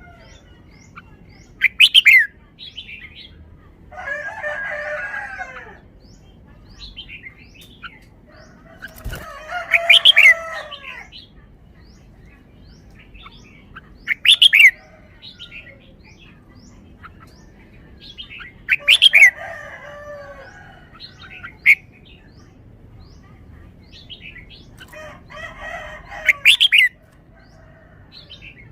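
Red-whiskered bulbul singing: short, loud, sharp phrases repeated every few seconds, with longer, lower calls of about two seconds sounding in between.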